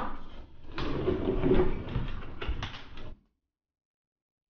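Close handling noise: clothing rustling past the microphone and a few knocks of objects being moved on a wooden workbench. It stops dead about three seconds in.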